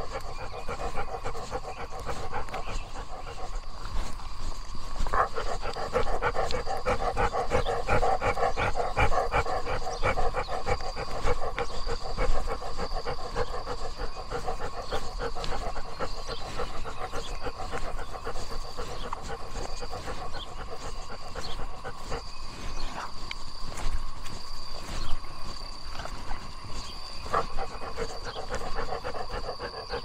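A dog panting in quick rhythmic breaths, strongest between about five and twelve seconds in, over a steady high-pitched drone.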